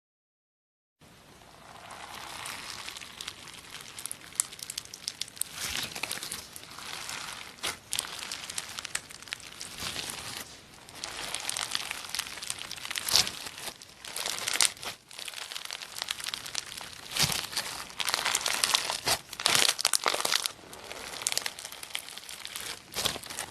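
Slime being squished, stretched and mixed by hand, with many small crackling pops of air pockets; it starts about a second in after a moment of silence.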